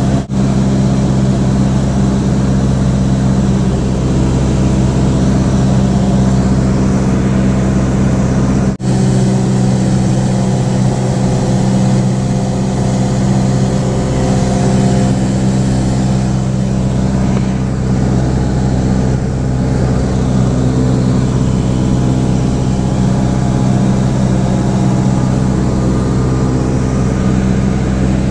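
Cessna 172's piston engine and propeller droning steadily in flight, heard inside the cabin, with a steady low hum and rushing noise above it. The sound drops out for an instant twice, near the start and about nine seconds in.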